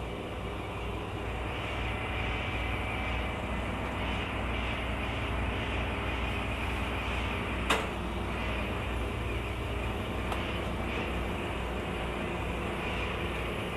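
Battery-powered disinfectant sprayer running steadily, its pump and spray wand making a continuous hiss over a low hum. A single sharp click a little past halfway.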